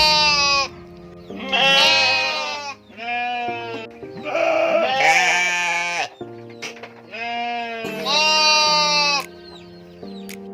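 An animal calling about six times in a row, each call a wavering, pitched cry of half a second to two seconds, over steady background music.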